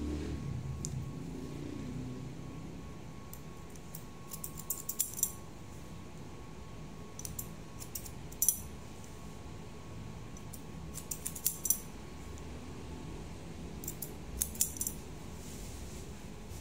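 Hair-cutting scissors snipping hair in short quick runs of several cuts, with pauses of a second or more between runs.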